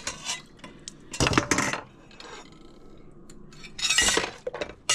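Dishes, stainless-steel bowls and cutlery clinking and clattering as they are handled in a kitchen sink. The clatter comes in three bunches: one at the start, the loudest about a second in, and another about four seconds in.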